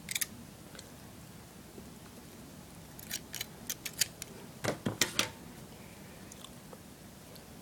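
Floss string wrapped on a bamboo blowgun dart being cut with a blade: a few short, sharp clicks and snips, most of them bunched together about three to five seconds in.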